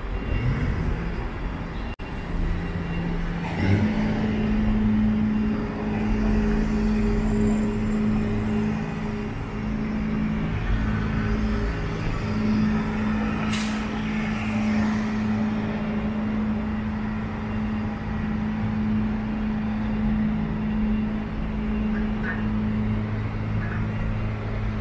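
City street traffic with a heavy vehicle's engine humming steadily at one low pitch from about four seconds in, like a truck or bus idling. A brief hiss comes about halfway through.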